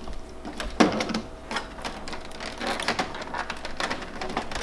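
Irregular plastic clicks and knocks from the panels and covers of a Kyocera copier being handled during disassembly, with a sharper knock about a second in.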